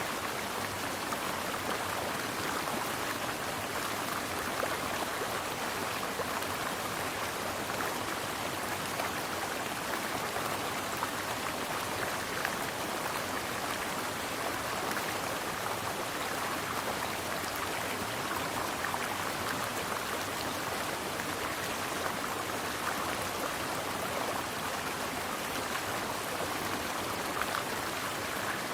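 Mountain stream flowing steadily, a continuous rush of water with fine splashing.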